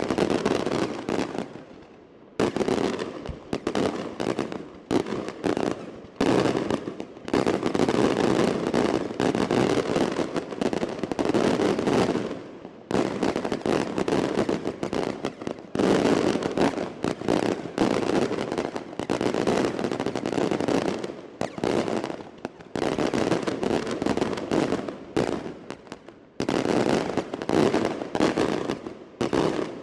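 Daylight fireworks: salvos of small aerial reports going off in quick succession, many sharp bangs crowding together, with short lulls about two, twelve and twenty-six seconds in.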